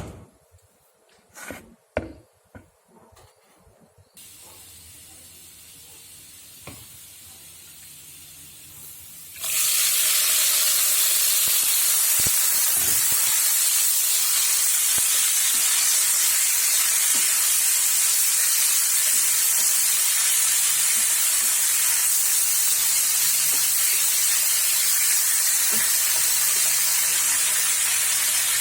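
A few utensil knocks and clatters, then food frying in hot oil in a pan. A loud, steady sizzle starts abruptly about a third of the way in and carries on unchanged.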